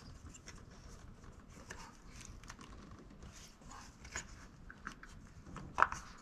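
Faint scraping and small clicks of gloved hands working an ignition coil pack loose from its spark plug tube in a Nissan GT-R engine, with one sharp click near the end.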